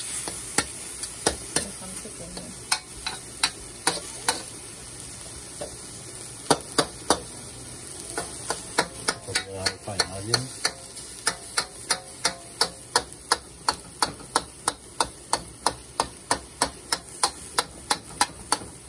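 Metal spatula scraping and clicking against a wok while stir-frying diced chicken, onion and egg, with sizzling underneath. The clicks come about two to three a second and grow more frequent in the second half.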